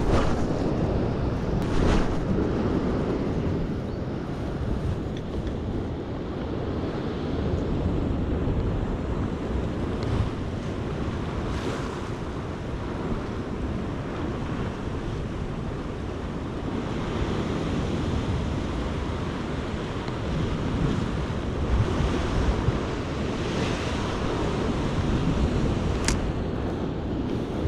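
Ocean surf washing against a rock ledge, with wind buffeting the microphone, a steady rushing noise. A few short clicks stand out, the sharpest near the end.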